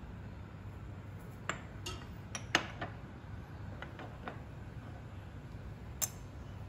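A metal teaspoon clinking and tapping against a stainless steel wok and glass jars as seasonings are spooned into the stock. There are about eight light clinks in a cluster, the loudest about two and a half seconds in, and one more near the end, over a low steady hum.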